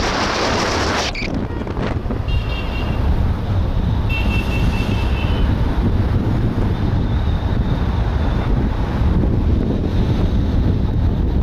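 Wind buffeting the microphone and low road rumble from a moving car. A loud hiss in the first second eases to a steady low rumble, with two short high-pitched tones about two and four seconds in.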